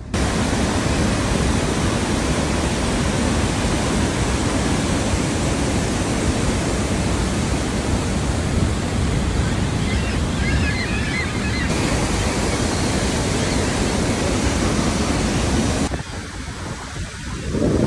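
Steady roar of rushing water from Niagara Falls, mixed with wind blowing on the microphone, as heard from a tour boat at the foot of the falls.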